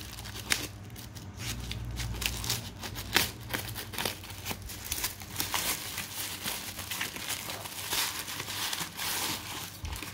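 Scissors snipping through plastic courier wrapping, then the plastic being peeled off and crinkled as the parcel is unwrapped: sharp snips and rustling, with a denser stretch of crinkling from about halfway through.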